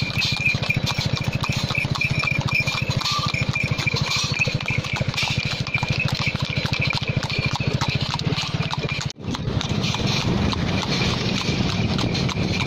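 Horse hooves clip-clopping on asphalt as a horse-drawn two-wheeled cart (tonga) trots along, with the rattle of its spoked wheels on the road. The sound breaks off for an instant a little after nine seconds in and then picks up again.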